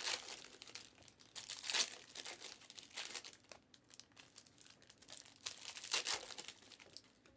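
Foil wrappers of 2022-23 Panini Flux basketball card packs crinkling and tearing as the packs are ripped open by hand. The sound comes in irregular bursts, the loudest right at the start, about two seconds in and about six seconds in.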